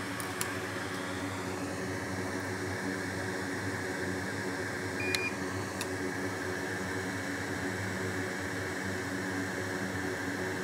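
Steady fan-like hum and hiss of repair-bench equipment, with a few faint clicks and a short high beep about halfway through.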